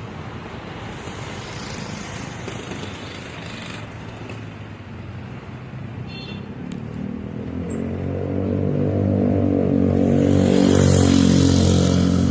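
A motor vehicle's engine approaching and passing close by, growing louder from about halfway through and loudest near the end.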